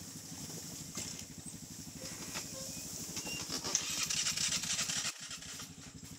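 ATV (four-wheeler) engine idling with a steady low chug. The engine sound drops out for a moment about five seconds in, and a hiss swells just before that.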